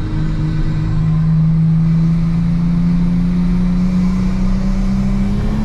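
Nissan Skyline R34 GT-T's turbocharged straight-six pulling under throttle, heard from inside the car, its note climbing slowly and steadily as the revs rise.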